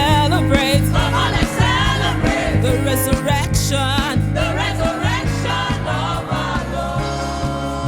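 Gospel choir singing over a live band with bass and keyboard, the voices fading out in the last few seconds as the band plays on.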